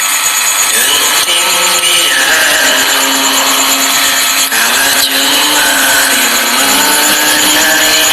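A man's recorded singing played back with a concert-hall reverb effect, with long held notes that slide in pitch. A loud, harsh hiss-like noise lies over the voice throughout.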